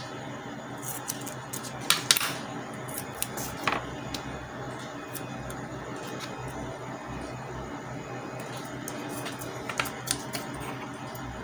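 Double-sided tape and a small plastic part being handled by hand: scattered small clicks and crinkles of the tape being peeled and pressed, with a louder cluster about two seconds in and a few more near the end, over a steady low hum.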